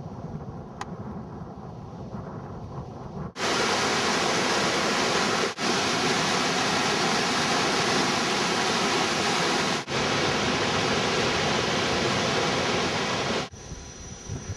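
Rushing water: a low rumble at first, then about three seconds in a loud, steady hiss of water cuts in, broken twice by brief gaps, and it stops abruptly about a second before the end.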